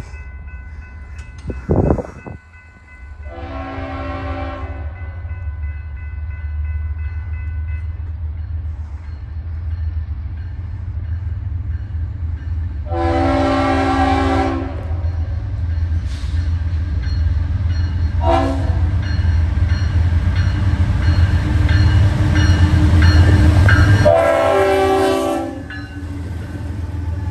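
Freight train approaching and passing. The diesel locomotive's air horn sounds five times, long blasts with two short toots between them, over a rumble of engines and wheels that grows steadily and peaks as the lead locomotives go by near the end. A sharp thump about two seconds in.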